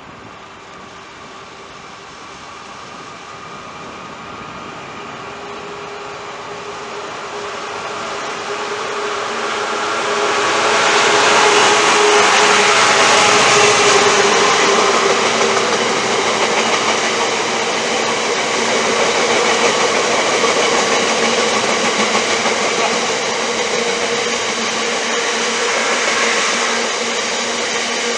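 A train approaching, its sound growing steadily for about ten seconds, then passing close by and staying loud, with a steady whining tone over the rushing noise.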